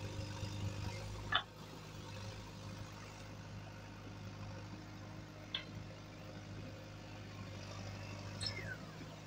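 JCB 3DX backhoe loader's four-cylinder diesel engine running steadily under load as the backhoe arm lifts a full bucket of soil out of the pit. Three short high squeaks cut through the engine hum, about a second and a half in, around five and a half seconds, and near the end, the last one sliding down in pitch.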